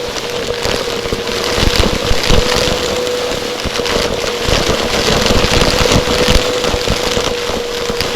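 Vacuum cleaner running close to the microphone, a steady motor whine over a loud rush of air, with frequent knocks and clatter as the cleaner is pushed about.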